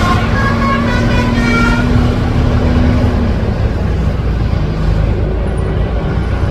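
Telolet bus horn (a Basuri multi-tone horn) playing a few short notes of changing pitch in the first two seconds, over the low running of a bus engine and road traffic. A held low tone stops about three seconds in.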